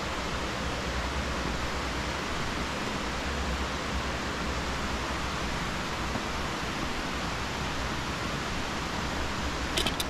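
Steady hiss of rain falling, with a short click near the end.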